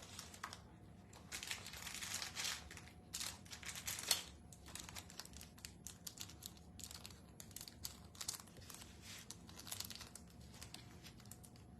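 Hands rummaging through craft supplies: irregular bursts of rustling and crinkling, as of plastic packaging being handled, with a few light clicks.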